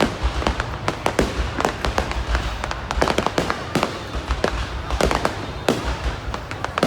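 Aerial fireworks display: a continuous volley of booming shell bursts, several a second at uneven intervals, over a low rumble, with occasional faint rising whistles of shells going up.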